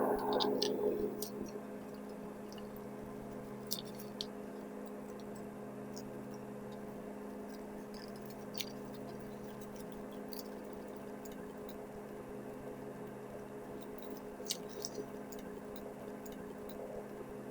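Faint rustling and a few small clicks of hands attaching pieces to a grapevine wreath, over a steady low electrical hum.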